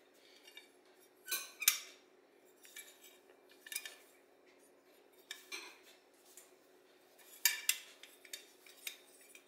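Light metal clinks and taps as the air horn and small parts of a Ford Autolite 2100 carburetor are handled and set together, a scattered series of sharp clicks that is loudest about one and a half seconds in and again near the end. A faint steady hum sits under them.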